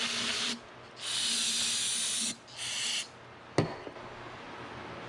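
Aerosol can of brake cleaner spraying in three hissing bursts, the last stopping about three seconds in, followed by one sharp knock.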